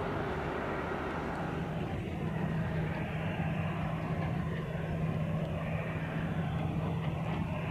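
Airbus A321neo's Pratt & Whitney geared turbofan engines running on the runway: a steady jet rumble, with a low hum that sets in about a second and a half in.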